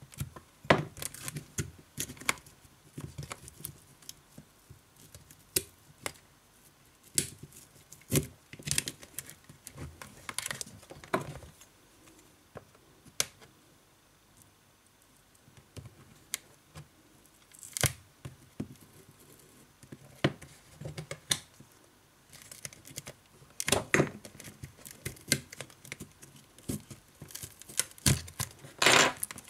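A metal pry tool clicks, taps and scrapes against the edge of a Sony Xperia Z2 Tablet's glass display and frame as the display is pried up. The sharp clicks come at irregular intervals, bunching into quick runs twice near the end.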